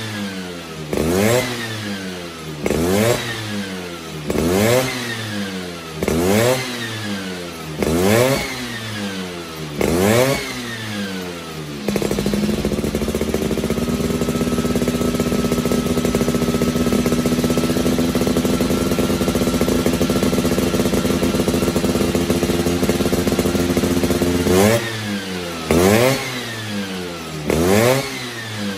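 Vespa Cosa 150 two-stroke scooter engine with a Malossi 177 cast-iron cylinder kit, revved in sharp blips about every two seconds, then held at steady high revs for around twelve seconds, then blipped again near the end.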